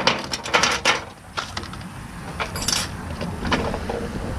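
Small hard items clattering as a bag's contents are dumped out, a quick run of knocks in the first second, then scattered single knocks and rustles as they are picked through.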